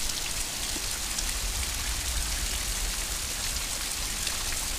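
Heavy summer downpour falling steadily and splashing into puddles, a constant hiss of rain with a low rumble underneath.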